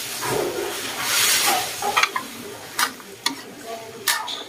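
Canned milk poured into a simmering wok of pork and chicken stew, with a hiss for about the first two seconds. Then a metal ladle stirs the stew and clinks against the wok a few times.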